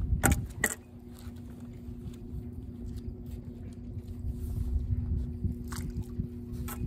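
Fishing tackle being handled on a pier: a few sharp clicks and knocks just after the start, and two more near the end, over a steady low rumble and a faint steady hum.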